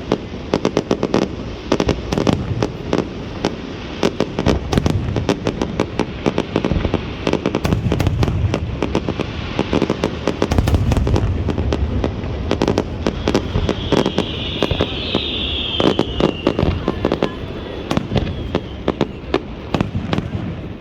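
Aerial fireworks going off in quick succession: rapid runs of sharp bangs and crackles, with deeper booming shell bursts in the middle. A high whistling sound that falls slightly in pitch follows a little after the middle.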